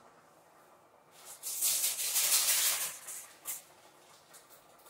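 Sachet of powdered juice mix being shaken, the powder rattling inside for about two seconds, followed by a few short crinkles of the packet.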